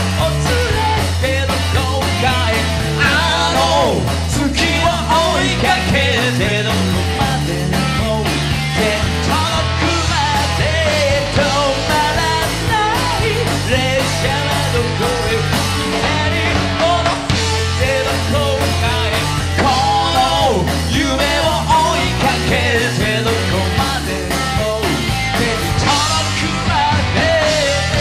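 Live rock band playing: electric guitars, bass guitar and drums, with a male lead singer singing into a microphone. The music is loud and steady throughout.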